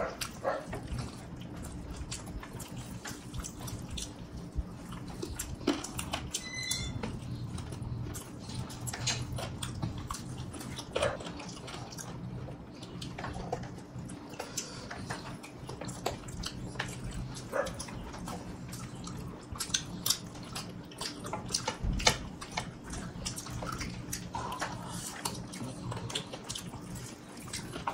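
Close-up eating sounds of people eating biryani with their hands: wet chewing, lip smacking and mouth clicks scattered throughout, over a low steady hum.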